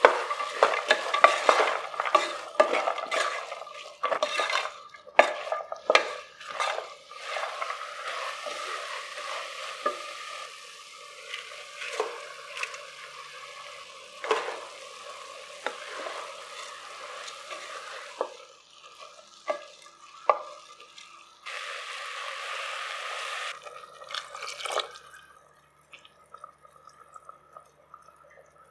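A spatula stirring and scraping vegetables that sizzle in oil in an aluminium pressure cooker, clacking against the pot many times. About twenty seconds in, water pours in steadily for about two seconds over the rice and vegetables.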